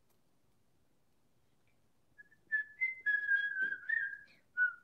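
A person whistling a wandering tune in short notes, starting about halfway in after near silence.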